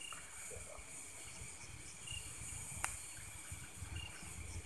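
Night insects, crickets, chirring steadily in the dark, with a short high chirp repeating about every two seconds over a low rumble. A single sharp click about three seconds in.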